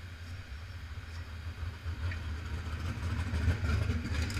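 A car driving past on the pit road, its engine getting louder toward the end, over a steady low rumble.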